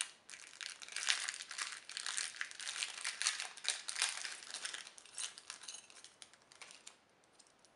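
Small plastic packaging bag crinkling as hands unwrap and crumple it to free a metal clasp, the crinkling thinning out and dying away over the last couple of seconds.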